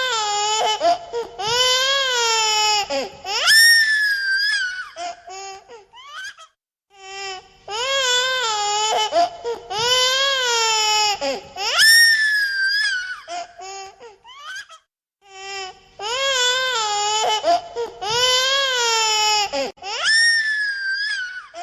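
Baby crying in high-pitched wails, the same cry sequence repeating about every nine seconds with short pauses between, as a looped sound effect.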